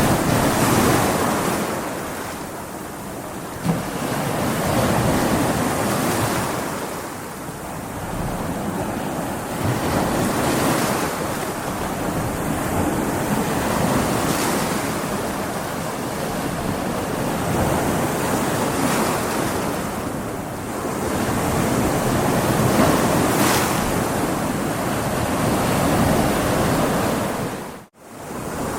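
Stormy sea: waves breaking and washing in, the surf noise swelling and ebbing every few seconds, with wind. The sound cuts out for a moment near the end.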